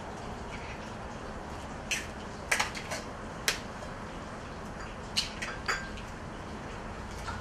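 Eggs cracked against the rim of a stainless steel mixing bowl and the yolks separated: a scattering of sharp clicks and taps in two clusters, over a steady low hiss.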